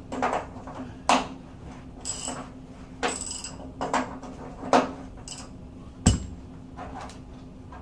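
Irregular metallic knocks and clanks of hand tools being handled and set against a water heater element, about eight in all, the sharpest about six seconds in, over a steady low hum.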